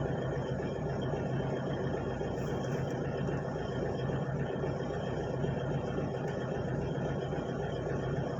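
Excavator's diesel engine running steadily under work, a constant low drone.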